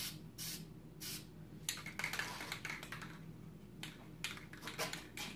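Aerosol can of white spray paint sprayed in a string of short hissing spurts, some eight or nine of them, from a can that is nearly empty.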